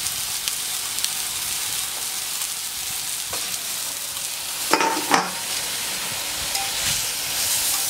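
Spatchcocked coquelets sizzling steadily on a hot hard-chrome steel plancha. About five seconds in, a stainless steel dome cover is set down over them with two ringing metallic clanks.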